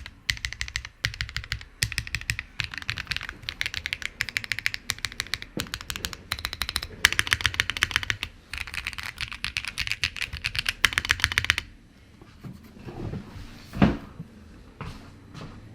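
Typing on a Ciel60 mechanical keyboard with stock factory-lubed Aflion Tropical Waters V2 switches, a polycarbonate plate and Deadline Studio AIR polycarbonate keycaps: rapid key strokes in short bursts for about eleven seconds, then the typing stops. A single thump follows a couple of seconds later.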